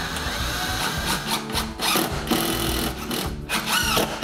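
Cordless drill running, driving screws through the back of a kitchen base cabinet into the wall.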